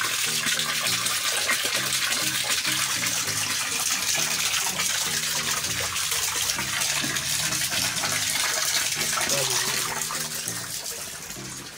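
Water gushing steadily from a hose into a fry tank, easing off a little near the end.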